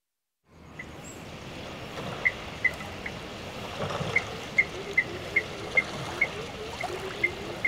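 Outdoor waterside ambience with a short high chirp repeated about ten times. It fades in after a moment of silence.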